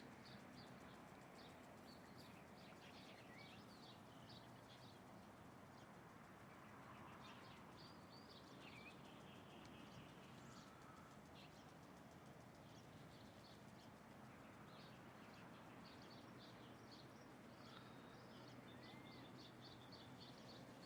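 Small birds chirping, with many short high chirps coming in quick runs and a few brief sliding calls, all faint over a steady low background hum.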